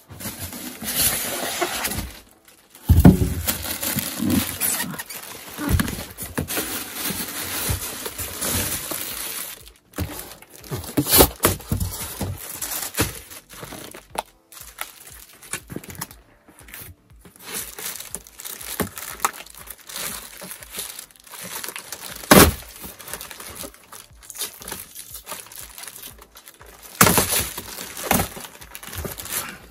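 Unboxing handling noise: packaging rustling and crinkling, with a few sharp knocks spread through it.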